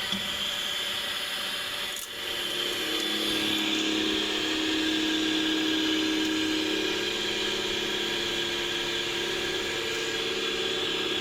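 A sharp click about two seconds in, then a steady mechanical running hum with a constant hiss.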